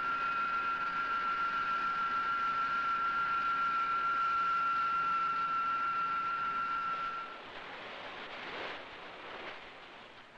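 A steady high-pitched tone in a ship's steam turbine engine room, which stops about seven seconds in and leaves a rushing hiss of machinery.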